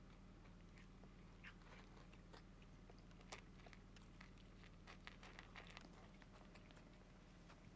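Cat crunching dry kibble: faint, irregular crunches as it chews.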